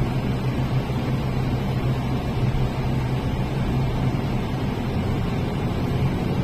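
Steady, unbroken mechanical drone with a low hum, such as a vehicle engine makes.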